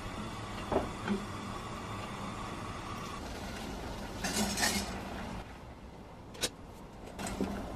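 Water heating in a stainless steel pot on a gas burner, a steady low rush, with a few light metallic clinks of the pot. About four seconds in comes a brief rattling clatter as a bundle of dry spaghetti is dropped into the pot.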